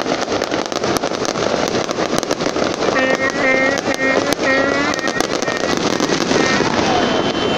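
Aerial fireworks going off in a dense, continuous string of bangs and crackles. A run of short pitched notes sounds over them for about two seconds a few seconds in.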